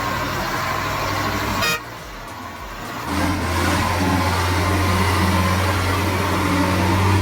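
A vehicle engine running steadily with a low hum. The sound drops off abruptly a little under two seconds in, and a louder, steady low drone starts about three seconds in.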